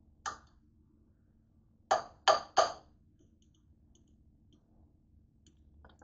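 Metal fork clinking against a ceramic slow-cooker crock: one light tap, then three sharp taps in quick succession about two seconds in, and a small tick near the end.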